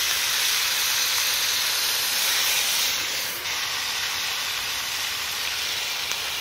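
Kimchi frying in hot pork-belly fat on a round griddle: a steady sizzle that drops slightly in level about three and a half seconds in.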